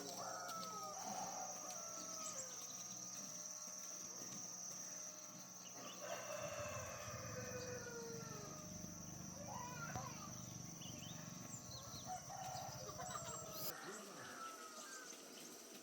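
Roosters crowing several times, each call a long falling cry, with chickens calling, over a steady low hum that stops near the end.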